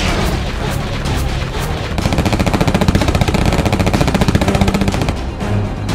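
Cartoon machine-gun fire. Spaced shots of about three or four a second at first, then a dense, very rapid burst of automatic fire from about two seconds in until about five seconds in, over background music.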